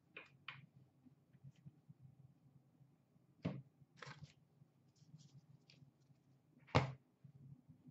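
Upper Deck SP Authentic hockey cards and packs being handled: a quiet background broken by a few sharp clicks and taps, the loudest about three and a half seconds in and near the end.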